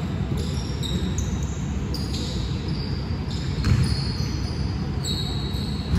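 Basketball game on a gym court: a ball bouncing and sneakers giving short, high squeaks on the floor as players run.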